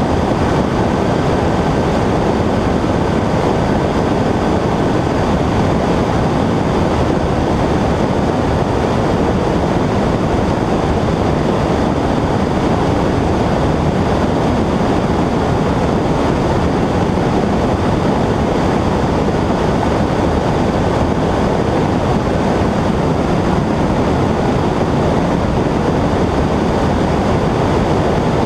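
Cabin noise of a Cessna 120 light plane in cruise: the piston engine and propeller running steadily with wind rush, loud and unchanging throughout.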